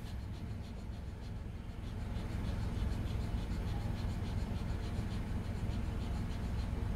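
Steady low hum inside a car cabin, with a faint, quick, rhythmic rasping that grows a little louder about two seconds in.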